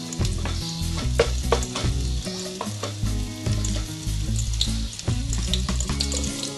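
Chopped garlic and onion sizzling in hot oil in an aluminium pot, with a wooden spoon stirring and now and then knocking against the pot. A low drone runs underneath.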